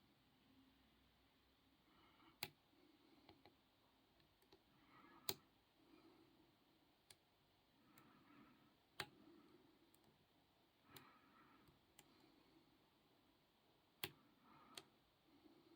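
Sparse, sharp clicks of a hook pick working the pins of a 50 mm Jasafe padlock during single-pin picking, about six clicks at irregular intervals of a second or more.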